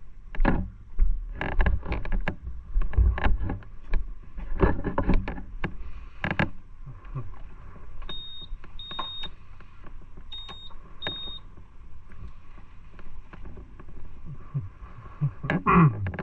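Knocks and rustles of a rider handling and mounting a scooter, then four short high electronic beeps in two pairs. A louder pitched surge comes near the end.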